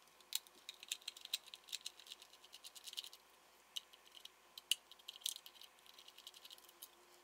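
Faint, irregular clicking and ticking of a small PH1 Phillips screwdriver turning a screw out inside the plastic battery compartment of a Fluke 62 Max IR thermometer.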